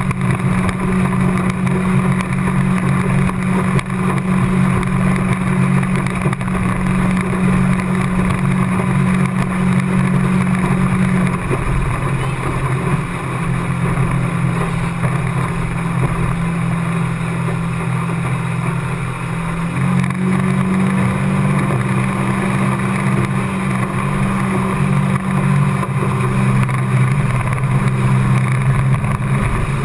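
A 50 hp outboard motor running steadily, driving the boat along at speed. Its note shifts slightly about a third of the way in and again about two-thirds through.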